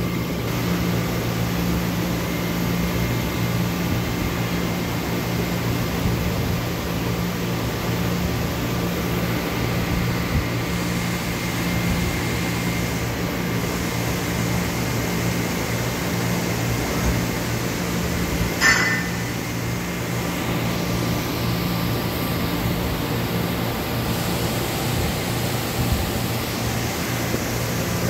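Steady hum of a powered-up Doosan Puma MX1600ST CNC mill-turn lathe, with a faint high whine that stops about twelve seconds in and a single sharp click about two-thirds of the way through.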